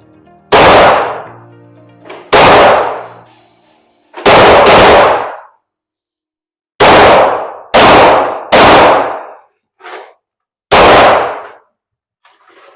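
Handgun being fired: eight loud shots at an uneven pace, two of them in quick succession about four seconds in, with a few much quieter shots in between.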